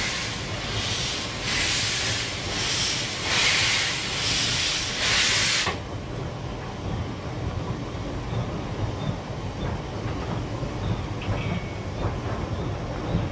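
C11 steam locomotive heard from its cab under way: rhythmic bursts of steam hiss, about one a second, that cut off suddenly a little before halfway, leaving the low rumble of the running locomotive with scattered clicks from the rails.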